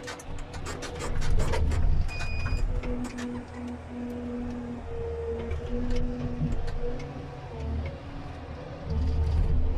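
Komatsu 931.1 wheeled forestry harvester heard from inside its cab: the diesel engine and hydraulics running under varying load, with a hum that comes and goes. A quick run of clicks and knocks in the first few seconds as the harvester head works the timber.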